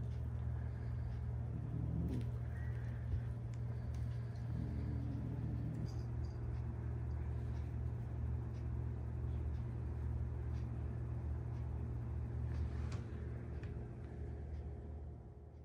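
A steady low hum, with faint soft rustles and light taps now and then, about two seconds and five seconds in.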